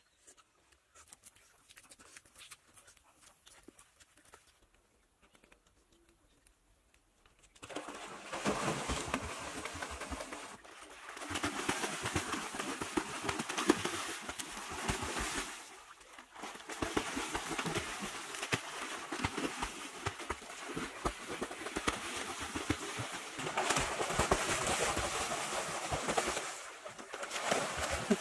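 Faint light clicks at first, then from about eight seconds in, loud continuous splashing of water as swimmers kick and paddle in a pool, dipping briefly now and then.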